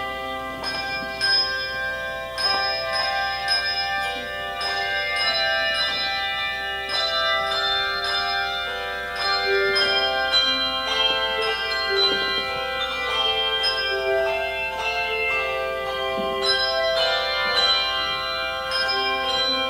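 Handbell choir playing a melody: struck bell notes, several a second, ring out and overlap.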